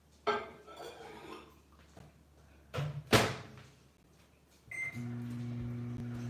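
A clatter, then two sharp knocks about three seconds in and a short beep, after which a microwave oven starts running with a steady low hum.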